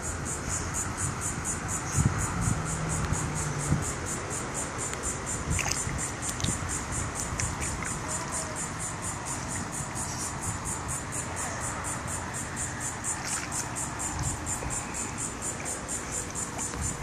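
Insects chirping steadily, a high, evenly pulsed chirp about four times a second.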